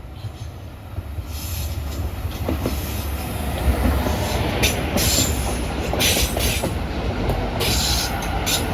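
A train running past, with a low rumble that grows louder and, from about a second and a half in, repeated bursts of high screeching hiss from the wheels on the rails.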